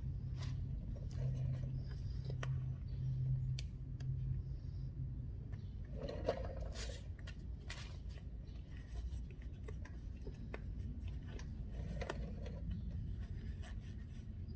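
Handling noises from working on an air filter with a bottle of filter oil: scattered scrapes, rubs and small clicks. A low steady hum fades out about five seconds in.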